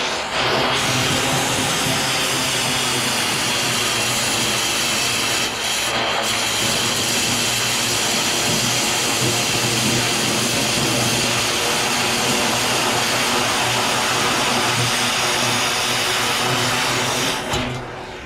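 Cutting torch burning through a steel pipe, heard down the length of the pipe: a loud, steady hiss with faint steady tones in it, dropping away a little before the end.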